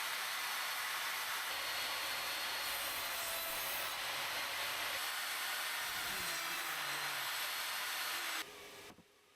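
Evolution R255 table saw running and cutting wood, a loud steady noise that stops abruptly near the end.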